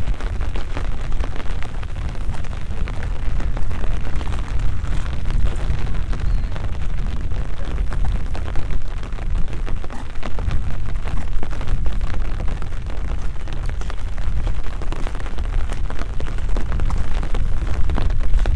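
Rain pattering in a dense stream of fine ticks, over a heavy, unsteady low rumble of wind buffeting the microphone.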